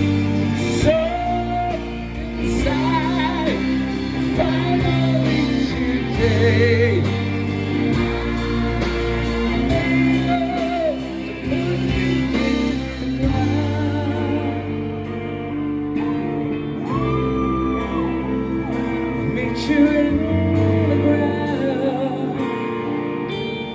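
Rock band playing live: electric guitars and bass under a male lead singer holding long notes with vibrato, with a steady cymbal beat.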